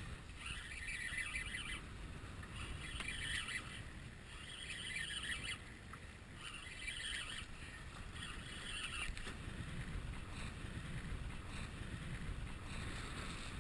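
A heavy fishing reel is cranked in short bursts, about five over the first nine seconds, as the angler pumps and winds against a hooked hammerhead shark. Wind and water wash run underneath.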